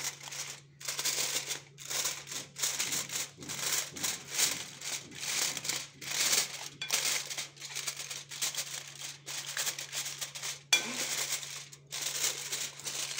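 Aluminium foil crinkling in irregular bursts as hands press and fold it down around the rim of a dish to seal it as a cover.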